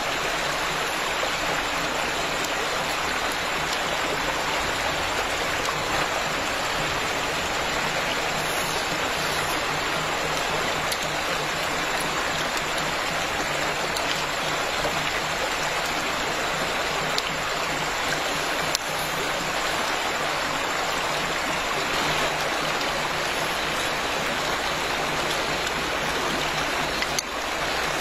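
Shallow river rushing steadily over rocks, with a few faint clicks over it.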